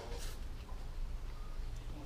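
A person eating noodles: a short mouth sound right at the start, then quiet chewing over a steady low hum.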